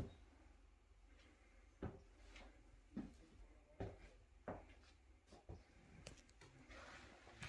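Near silence with faint, soft thuds about once a second: footsteps on a wooden floor.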